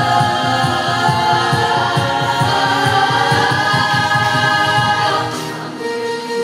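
Mixed choir of women's and men's voices singing held chords over a fast, regular low pulse. About five seconds in, the chord thins to one held note.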